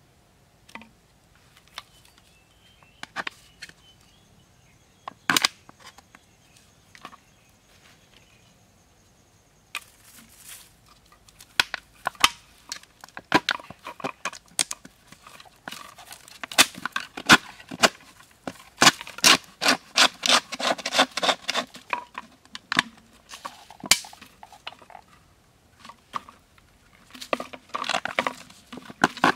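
Plastic soda bottle crinkling and crackling in the hands as it is pierced with a heated nail. A few separate clicks at first, then dense crackling from about a third of the way in, with another burst near the end.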